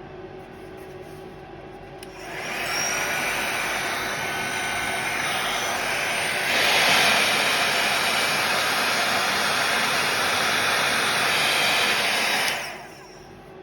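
Hot air brush (hair dryer brush) blowing: a steady rush of air that comes on a couple of seconds in, gets louder about halfway through, and shuts off near the end.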